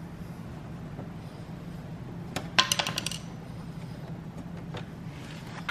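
A screwdriver put down on a concrete floor, its metal shaft clinking and rattling briefly about two and a half seconds in, over a steady low hum.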